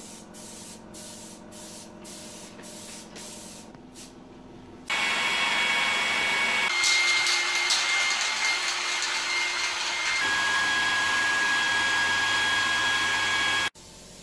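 Handheld heat gun blowing, a steady rush of air with a high whine, starting about five seconds in after a quieter stretch with faint ticks. The whine shifts in pitch twice, and it cuts off a little before the end.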